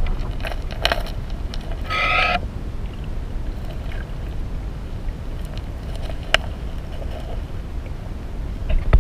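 Muffled underwater ambience picked up by a submerged camera: a steady low rumble of water with a few sharp clicks scattered through, one louder about six seconds in, and a brief brighter rush about two seconds in.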